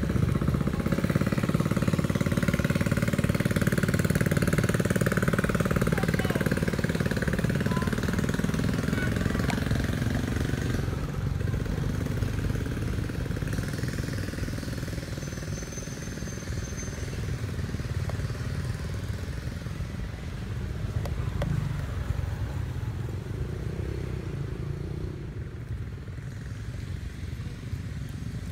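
A motor vehicle's engine running steadily, loudest for about the first ten seconds, then fading and staying fainter.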